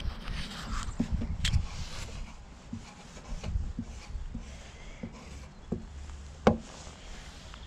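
Wide paint-marker nib rubbing across a hard plastic bin lid as a tag is written, with handling noise and scattered light knocks and clicks. A sharp click about six and a half seconds in is the loudest.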